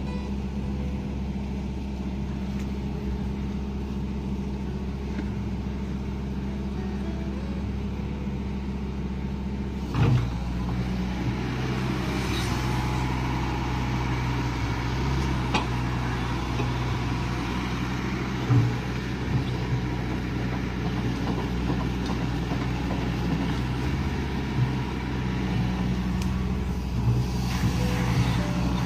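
Hitachi Zaxis 110MF excavator's diesel engine running steadily. About ten seconds in a knock is heard, and the engine note grows louder and busier as the machine works under load. Another knock follows a few seconds later.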